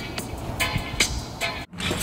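Music playing over a low rumble, with a brief sudden dropout near the end.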